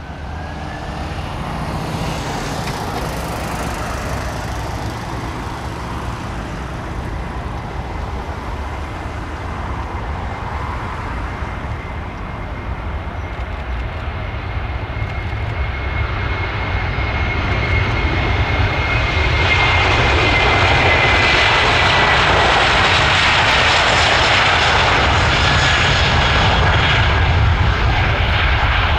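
Airbus A330 twin-engine jet airliner on its takeoff roll: a steady jet rumble that swells to full takeoff power, getting louder in two steps, near the start and past the halfway point. A thin fan whine slides slightly lower as the aircraft passes, and the sound is loudest near the end as it rotates.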